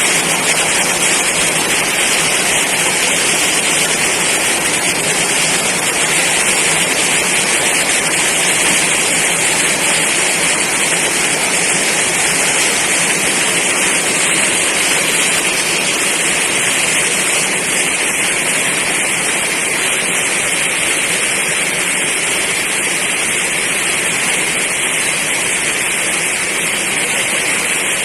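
Heavy rainstorm downpour: a steady, unbroken hiss of rain.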